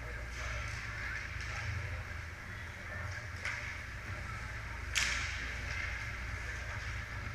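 Ice hockey play on a rink: a steady low hum under the scrape of skates on ice, with a few light stick clicks and one sharp crack of the puck about five seconds in.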